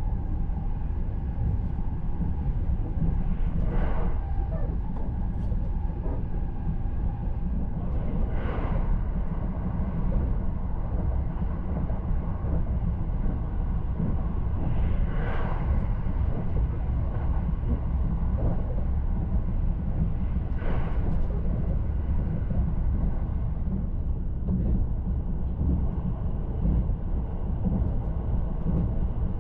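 Running noise inside the cabin of an E353-series limited express train at speed: a steady low rumble from the wheels and track, with a brief swelling rush four times, about every five or six seconds.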